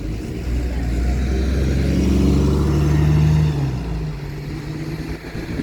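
A diesel bus engine pulling away and driving past close by: a steady low engine note that grows louder, peaks in the middle, then fades as the bus moves off.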